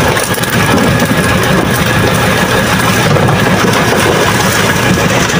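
Fishing boat's engine running steadily and loud, with a fast even low beat.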